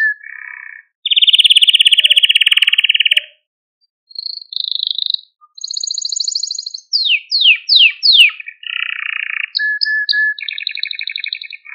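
Male canary singing. A long, fast trill gives way to a short pause. Higher notes follow, then a run of four quick downward-sweeping notes, more rapid trills and a short steady whistle.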